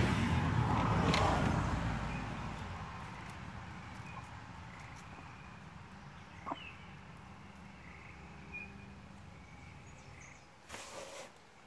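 Faint short bird calls over a quiet yard, after a low rumble that fades away over the first few seconds. There is a single sharp tap about six and a half seconds in and a brief rustle near the end.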